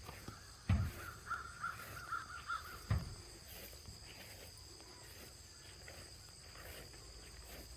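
A crow cawing in a wavering run of calls for about a second and a half, with two dull low thumps, one just before the calls and one just after. A steady high insect drone runs underneath.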